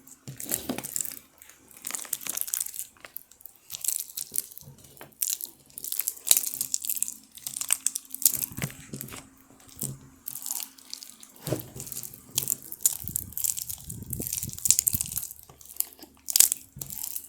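Butter slime being squeezed and worked by hand, giving irregular sticky crackles, clicks and pops.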